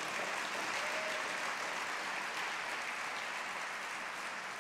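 Congregation applauding, steady and easing off slightly toward the end.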